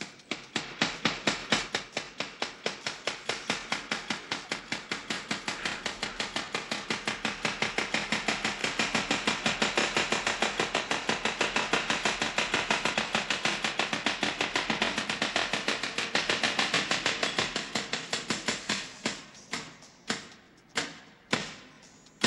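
A fast, even run of sharp clicks or taps, several a second, that grows louder, then thins out and stops near the end.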